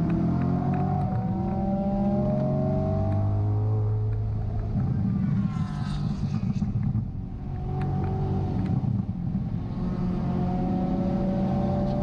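BMW E92 M3's 4.0-litre V8 under load on a race track, heard from inside the car: the revs climb through the first few seconds, the engine note drops off briefly about seven seconds in as the driver lifts off the throttle, then it pulls steadily again.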